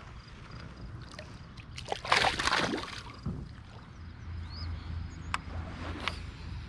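Splash of a small bass released back into the lake about two seconds in, then a sharp click and a short swish near the end.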